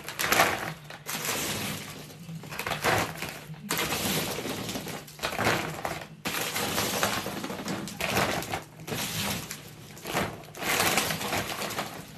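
Hard, dried boilies rattling as they are handled into a plastic bag, with the bag crinkling, in irregular bursts about a second long.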